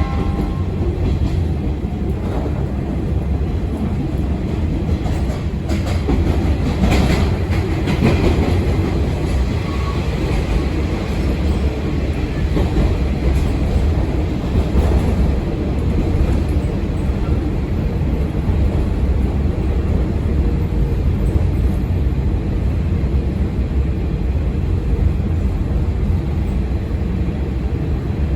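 JR Shikoku KiHa 40/47-series diesel railcar running along the line: a steady low rumble of engine and wheels, with a few faint rail-joint clicks partway through.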